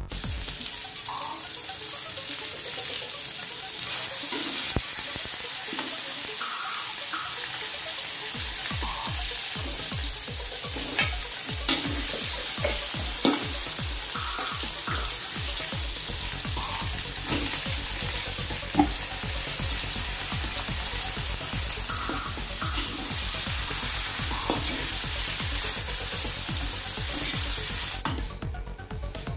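Spices, chilies and shredded smoked fish sizzling in hot oil in a wok, stirred with a metal spatula that scrapes and clicks against the pan now and then. The sizzle dies down near the end.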